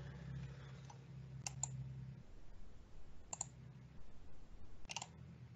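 Quiet open-microphone room tone with a low steady hum and a handful of short, sharp clicks spread across a few seconds.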